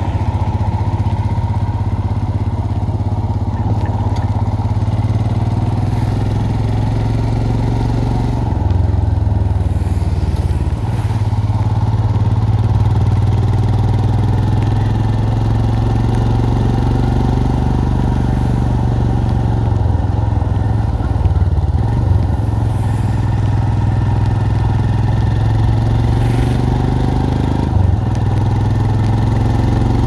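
Royal Enfield Himalayan's single-cylinder engine running steadily under way, heard from the rider's seat, with the note changing briefly a few times, about 9, 11 and 28 seconds in.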